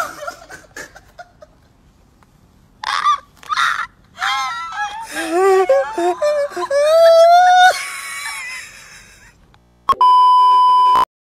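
A man shrieking with laughter: a couple of short breathy gasps, then long high-pitched wailing laughs that rise and fall in pitch. Near the end comes a steady electronic test-tone beep lasting about a second.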